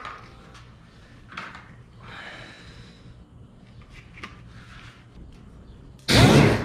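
Faint handling clicks and rustles, then about six seconds in a pneumatic palm sander is triggered: a loud rush of air as it spins up, rising in pitch, cutting off after about half a second.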